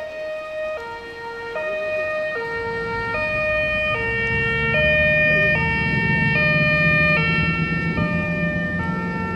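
Two-tone siren alternating between a high and a low note, each held just under a second, as a coast guard rigid inflatable patrol boat speeds off; the boat's engine rumble rises beneath the siren from about two and a half seconds in.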